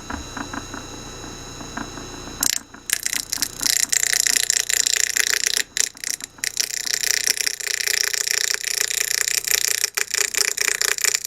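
Electric motor spinning a poplar block on its shaft as a homemade lathe, running with a steady hum. About two and a half seconds in, a wood chisel bites into the spinning wood with a loud, rough, chattering scrape that carries on with brief breaks.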